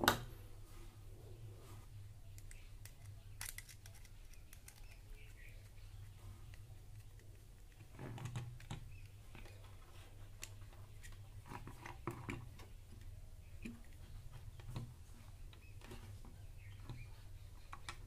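Faint scattered clicks and taps of hands handling a small plastic doorbell switch box and its wires and turning its terminal screws with a screwdriver, with one sharper click at the outset, over a low steady hum.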